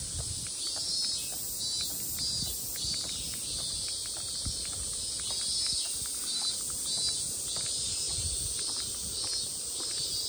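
Cicadas calling in a summer chorus: a steady high hiss with a brighter pulse recurring roughly every half second. The walker's footsteps tap faintly underneath.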